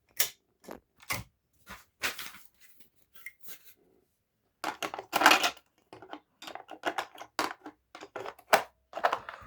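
Hermes Baby portable typewriter being handled: irregular clicks and knocks of its mechanism, with a couple of short scraping rustles around two and five seconds in.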